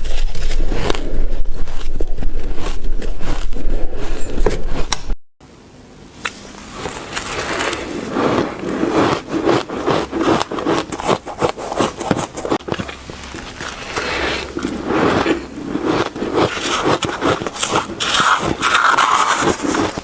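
Ice being bitten and chewed close to the microphone: a dense run of sharp crunches and crackles. It stops for a moment about five seconds in, then the crunching starts again.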